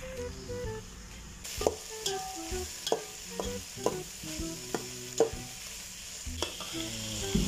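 Chopped buffalo meat and onions sautéing in a metal pot: a steady sizzle, with a utensil knocking and scraping against the pot about nine times as the mixture is stirred.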